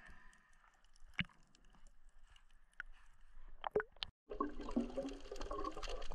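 Faint water sloshing and a few small splashes around an action camera at the sea's surface. After a brief dropout about four seconds in, a louder underwater crackling and bubbling.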